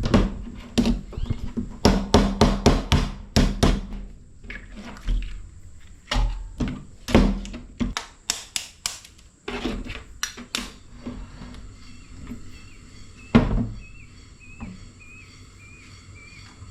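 Chopping on a wooden board: a run of irregular hard knocks, some in quick bursts, easing off after about ten seconds, with one last heavy knock a little later.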